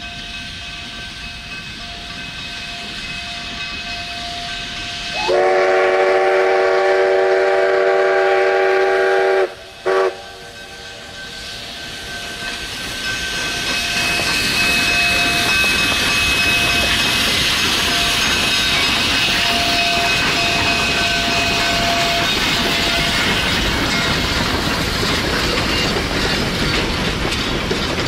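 Narrow-gauge steam locomotive's chime whistle sounding one long blast, then a short one after a brief break. The train then rolls past close by, the noise building and staying loud with wheels clicking over the rail joints.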